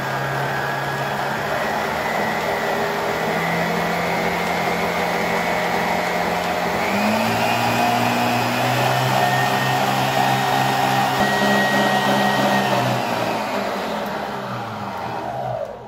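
Stand mixer motor running with its wire whisk beating eggs and sugar until pale and fluffy. The hum steps up in pitch about seven seconds in, then winds down and stops near the end as the mixer is switched off.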